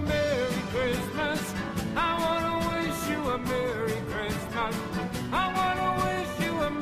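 Upbeat outro song with a singing voice and a steady drum beat.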